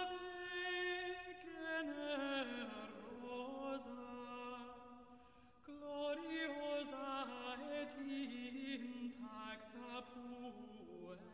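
Slow chant-like singing: one melodic line of long held notes that slide from pitch to pitch, with a short break about halfway through before the next phrase.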